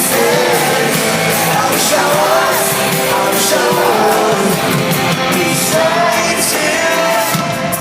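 Live pop-rock band performing a song, with singing over the band and regular drum hits.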